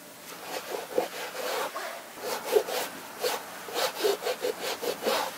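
Scrubbing on the white rubber sole sidewall of a Converse Chuck 70 sneaker: a run of quick, uneven back-and-forth strokes, about three a second, that stop suddenly at the end.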